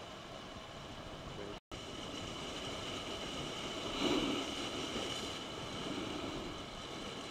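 Sea water surging and splashing up through a lava-rock blowhole, with a louder gush about four seconds in. The sound drops out briefly about a second and a half in.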